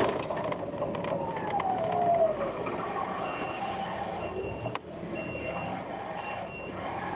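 Electric forklift on the move: its motor whine glides up and then falls away as it slows. From about three seconds in, short high beeps repeat, with one sharp click a little before five seconds.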